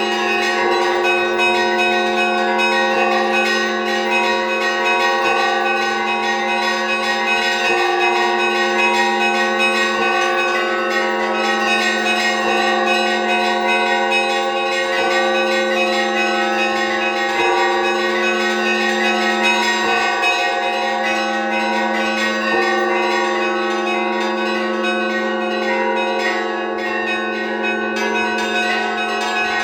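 Orthodox cathedral bells rung by hand in an improvised peal: quick strikes on the smaller bells over the steady ringing of a deep bell, with the tones overlapping throughout.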